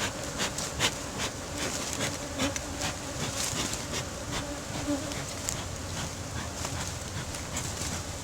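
Honeybees buzzing in a steady hum around an opened hive, with frequent short clicks and knocks throughout.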